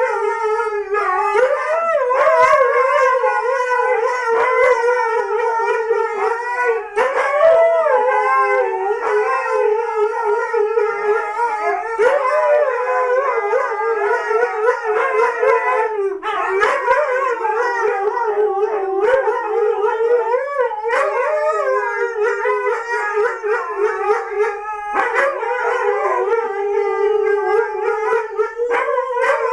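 Husky howling and yowling in long, wavering, sing-song calls, almost without a break, as an excited greeting.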